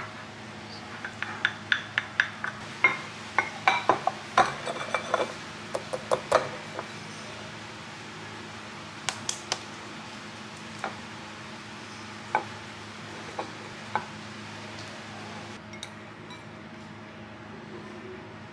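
Wooden spoon clinking and scraping against a small glass bowl as sticky rice is pressed into it, a quick irregular run of knocks over the first several seconds. Later come a few scattered knocks as the glass bowl is turned out onto a ceramic serving bowl.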